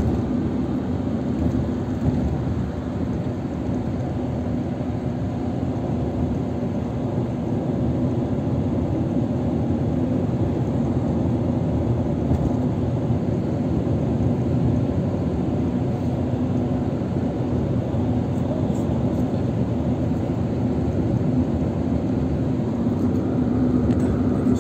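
Steady road and engine noise inside a moving car's cabin at city-road speed: tyre rumble and a constant low hum.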